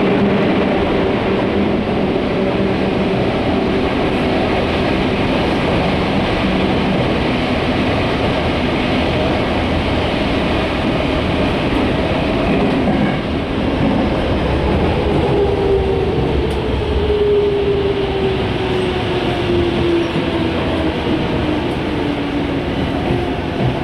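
Ride noise inside a Toyo Rapid Railway 2000 series electric train running along the line. It is a loud, steady rumble with a hum. In the second half a whining tone slowly falls in pitch.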